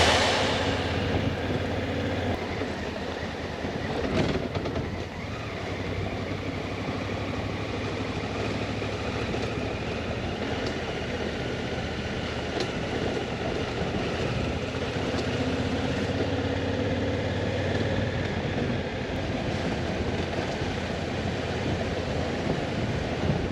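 A motorcycle running at road speed: a steady mix of engine and wind noise, with the engine pitch shifting slowly.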